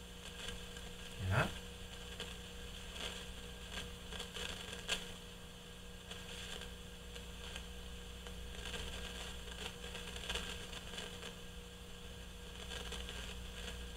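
Heathkit T-3 signal tracer's speaker in its noise-test position, playing a faint hiss and hum broken by irregular crackles and pops, with a louder pop about a second in and another near five seconds. The crackling is the intermittent noise of a failing resistor under test.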